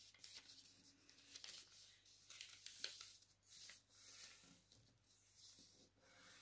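Faint rustling and scraping of a sheet of paper being folded and creased by hand, in irregular soft strokes, busiest about halfway through.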